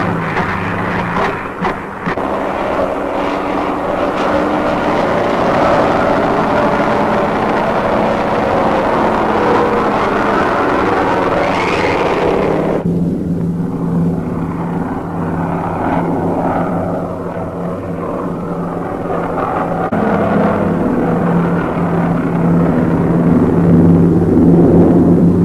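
Propeller fighter planes' piston engines drone steadily on an old film soundtrack, with a few sharp cracks of gunfire in the first two seconds. About 11 seconds in the engine note rises into a whine, then the sound turns duller and lower for the rest.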